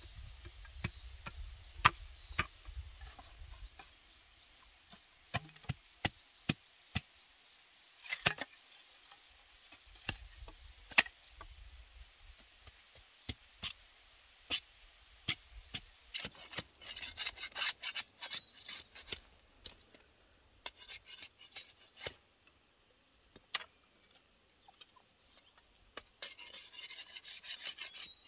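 Machete blade working bamboo strips: scattered sharp knocks of the blade on bamboo, with two stretches of quick rasping scrapes as a strip is shaved, one past the middle and one near the end.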